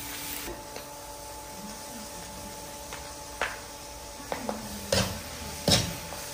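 Metal ladle stir-frying food in a stainless wok: a low steady sizzle, with about five sharp clanks of the ladle against the pan in the second half.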